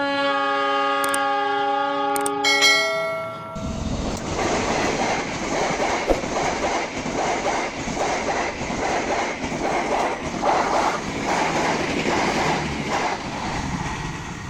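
A train horn sounds a multi-tone chord for about three seconds, changing notes partway through. Then a passenger train passes close by: a steady rumble with a regular clickety-clack of wheels over the rail joints, easing off near the end as it moves away.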